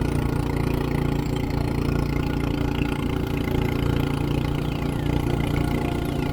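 Small boat engine running steadily at low speed, as when trolling.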